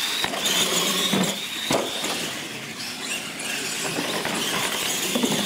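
Two radio-controlled monster trucks racing on a concrete floor: a high whine from their electric motors and gearboxes over tyre noise, with a few sharp knocks in the first two seconds as they launch off and land from the ramps.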